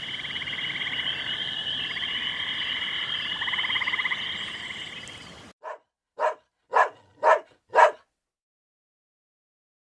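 A frog chorus trilling steadily, a dense high ringing with fast pulsing trills underneath, which cuts off abruptly about five and a half seconds in. It is followed by five short barks about half a second apart.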